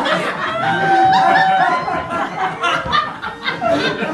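Theatre audience laughing and chuckling, with a voice holding one note for most of a second about half a second in.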